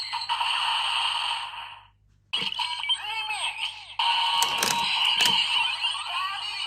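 DX Kamen Rider Jeanne transformation belt toy playing its electronic sound effects and jingle through its small speaker. It cuts off about two seconds in, starts a new sequence a moment later, and two sharp clicks come in the second half.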